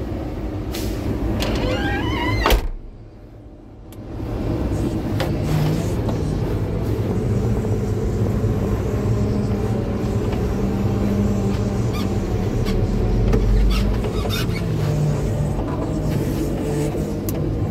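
Front end loader's diesel engine running steadily, heard from inside the cab. A loud knock comes about two and a half seconds in, the sound drops for about a second after it, and a few clicks and rattles follow later.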